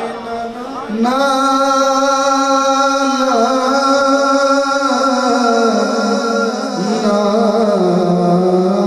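A man singing a naat into a microphone. From about a second in he holds one long note, then the melody steps down lower over the last few seconds.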